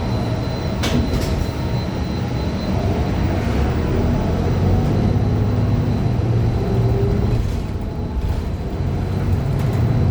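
Cabin noise of a Gillig low-floor CNG bus under way: the Cummins Westport ISL G engine and Allison B400R transmission running with a steady low rumble, plus rattles and a sharp click about a second in. The uploader calls this transmission faulty.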